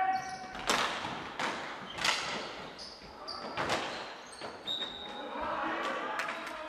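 Indoor hockey sticks and ball cracking sharply, about half a dozen hits, each ringing briefly in the echo of a large sports hall.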